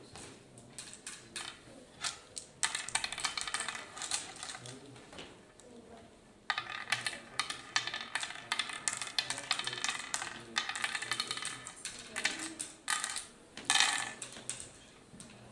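Oware seeds clicking and rattling in the pits of a wooden oware board as a player scoops them up and sows them from pit to pit. The clicks come in long runs of rapid taps, with a louder clatter near the end.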